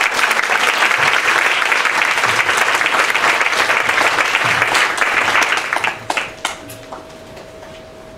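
Audience applauding, dying away about six seconds in, followed by a few knocks and rustles.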